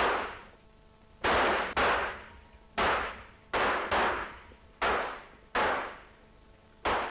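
Target pistol shots fired one after another, about nine sharp cracks at uneven intervals of half a second to a second, each dying away briefly.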